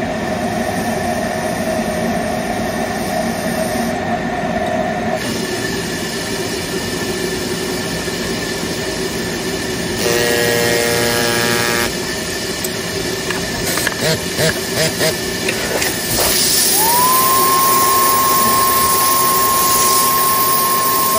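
Steam spotting gun of a stain-removal spotting machine blowing steam onto a silk scarf: a steady rushing noise over a constant machine hum. A short buzz comes about halfway through, and in the last few seconds a tone rises and then holds steady.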